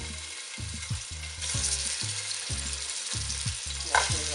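Curry-marinated goat meat sizzling as the pieces are dropped into hot oil in a pot. The sizzle gets louder about a second and a half in as more meat goes in, and there is a sharp knock near the end.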